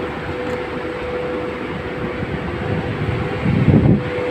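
Steady drone of shipboard machinery with a constant humming tone over it. A brief louder rumble swells up just before the end.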